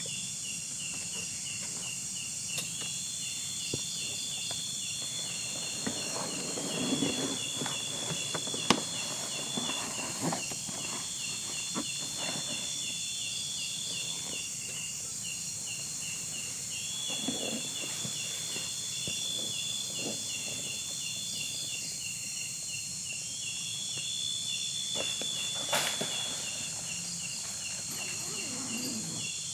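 Insects chirping steadily in a fast pulsing trill, with a higher, longer buzzing note that comes back every few seconds. Over it come scattered rustling and knocks, the sharpest about nine seconds in.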